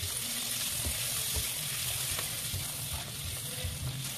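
Chicken and spice masala frying in oil in a non-stick pan, sizzling steadily while being stirred, with soft irregular knocks from a silicone spatula. This is the bhuna stage, frying the spices until they lose their raw taste.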